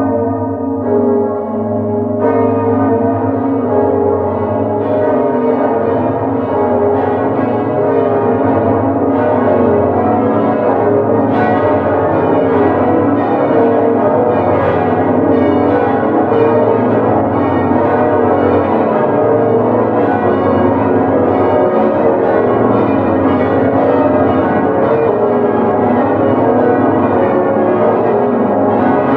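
Bells ringing, a steady stream of overlapping struck tones that keep sounding one into the next.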